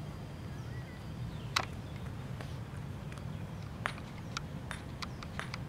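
Gateball play: a sharp crack about a second and a half in, like a mallet striking a hard ball, then a string of fainter, irregular clicks over a steady low rumble.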